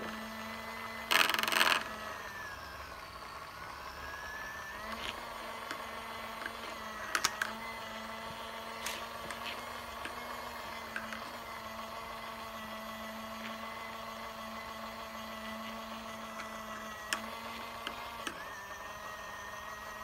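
Small battery-powered mini washing machine's motor whirring steadily as it spins soapy water around a makeup brush held in its drum. Its pitch sags and recovers about two seconds in and again near the end, with a short rattle about a second in and a few light ticks of the brush against the plastic drum.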